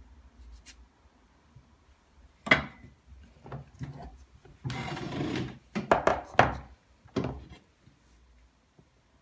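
Kitchen knife on a wooden cutting board while tomatoes are cut: a sharp knock about two and a half seconds in, a short scraping rub about five seconds in, then several more knocks.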